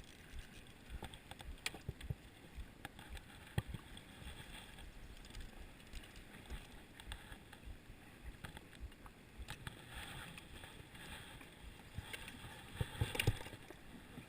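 Scattered light knocks and clicks of fishing gear being handled in a small boat, with a busier, louder run of knocking near the end.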